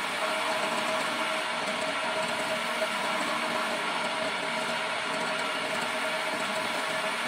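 Homemade wood lathe running steadily with a flat scraper held against the spinning wooden stair baluster: a continuous scraping hiss over the machine's steady whine.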